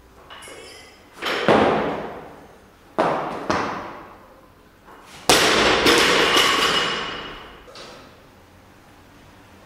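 Loaded Olympic barbell with bumper plates clanking and thudding through a snatch. The loudest hit, about five seconds in, is the bar being dropped from overhead onto the platform, followed by a long ringing of the bar and plates.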